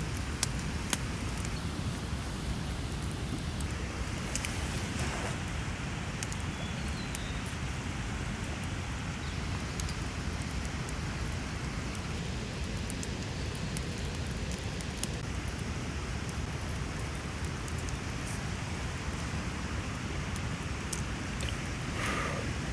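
Wood campfire crackling: scattered sharp pops and snaps over a steady rushing background noise.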